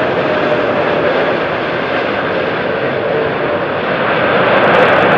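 Airbus A380's four Engine Alliance GP7200 turbofans running as the airliner lands and rolls out on the runway: a loud, steady jet noise with a faint steady tone in it, growing louder near the end.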